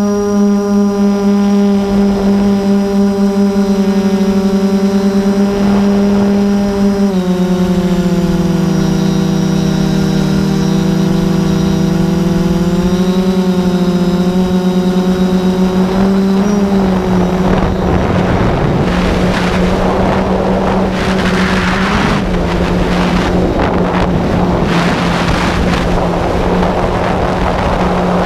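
Camera drone's motors and propellers humming steadily, the pitch stepping and sliding as the throttle changes. From about two-thirds of the way in, rough gusts of wind on the microphone take over from the hum.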